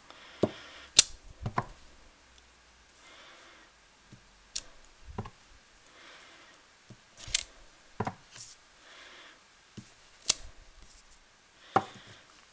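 Clear stamp on an acrylic block being handled and pressed onto cardstock: a scattered series of small sharp clicks and knocks of hard plastic on paper and the work mat, with soft rubbing in between.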